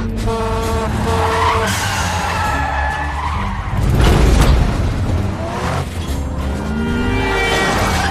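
Film car-chase sound effects: car tyres squealing and engines running hard, with a loud rush of noise about four seconds in, under a music score.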